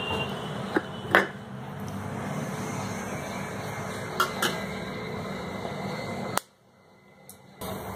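A few sharp clicks and taps of eggs and hands against a glass mixing bowl over a steady low hum. The sound cuts out for about a second near the end.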